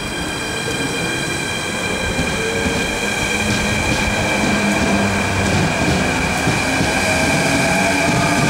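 Electric multiple-unit train pulling away and accelerating. Its traction motors whine in tones that slowly rise in pitch, over steady high tones and the rumble of wheels on the rails, growing louder throughout.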